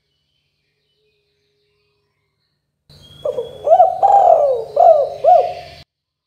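Spotted dove (tekukur) cooing: one phrase of about five coos, the middle one longest, starting about three seconds in and cutting off abruptly.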